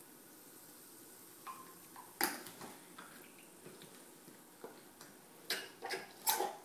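A few sharp clicks and knocks, the loudest about two seconds in and three close together near the end: a plastic dropper tapping against a small glass bottle of red colouring as it is dipped and refilled, over faint room hiss.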